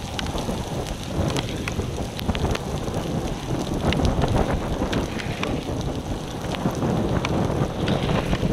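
Gusty wind rumbling across the microphone, rising and falling unevenly, with scattered sharp ticks of raindrops.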